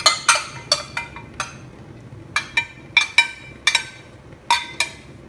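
Plastic bag of lard handled over a steel wok: about fifteen sharp crackles and clinks in irregular bunches as the bag is squeezed and shaken.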